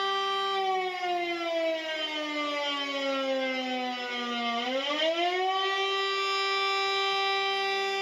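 Civil defense siren sounding a steady tone that slowly slides down in pitch for about four seconds, then quickly climbs back up to its steady pitch about five seconds in.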